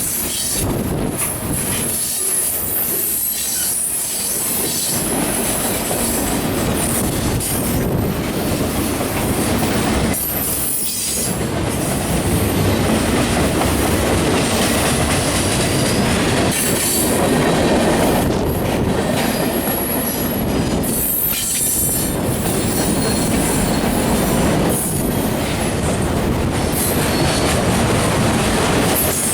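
A CSX freight train rolling past at close range: steady wheel-and-rail noise with high wheel squeal and the clatter of cars going by.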